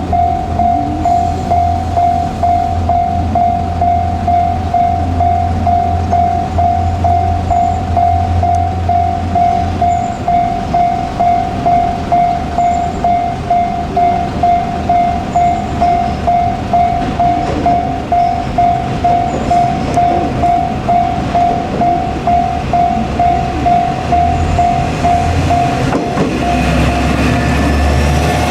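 Japanese level-crossing alarm ringing steadily at about two strokes a second, with the low rumble of a train on the tracks under it for the first ten seconds and again near the end.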